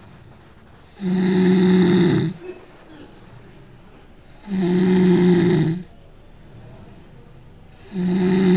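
A person snoring loudly: three long snores, each just over a second, coming about every three and a half seconds.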